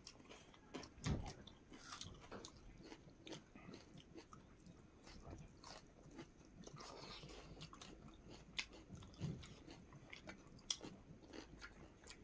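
Quiet chewing and biting of chicken and raw onion eaten by hand, with scattered soft crunches and small clicks.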